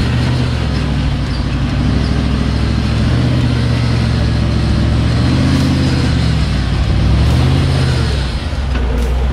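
Rock-crawling buggy's LS1 V8 engine revving up and down under load as it climbs over boulders, its pitch rising and falling a few times.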